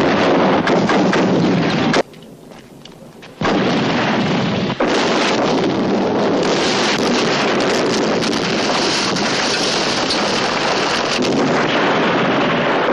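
Film battle sound of explosions: a loud, continuous din of blasts and rumbling. It drops off suddenly about two seconds in and comes back at full strength a second and a half later.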